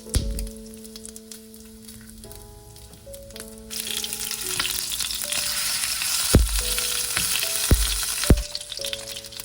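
Food frying in a hot pan: a sizzle that grows much louder about four seconds in. Three dull knocks come in the second half.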